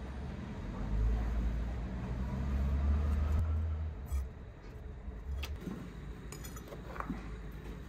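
A low rumble that swells and fades over about three seconds, then a few light metal clinks as a steel knife blade is handled against an anvil, the sharpest about a second before the end.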